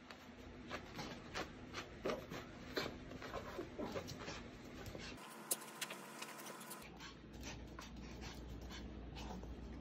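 Small white dog rubbing itself and scrabbling on a quilted fabric floor mat after a bath: quick scrapes and claw clicks, several a second for the first five seconds, then only a faint steady hum.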